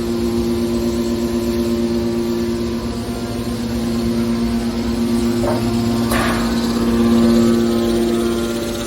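Hydraulic scrap metal baler running with a steady mechanical hum, with a brief metallic screech about six seconds in.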